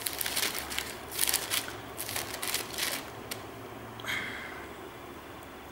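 Thin pages of a Bible being turned and handled: a run of quick papery rustles and flicks that thins out after about three seconds.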